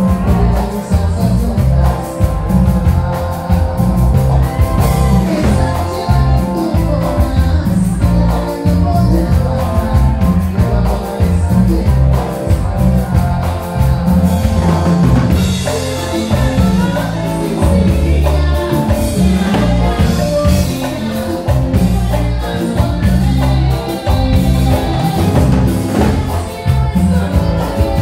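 Live band playing loudly: electric guitar, electric bass and drum kit with a heavy bass line, and a singer's voice over the band.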